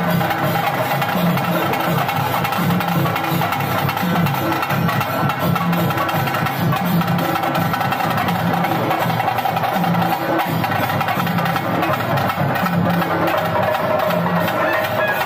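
Traditional temple music: a reed wind instrument holding a melody over steady, rhythmic drumming.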